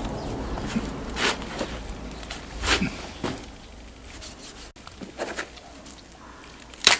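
A knife cutting and scraping through the skin and joint of a pig carcass's leg, a handful of short scraping strokes, the sharpest just before the end.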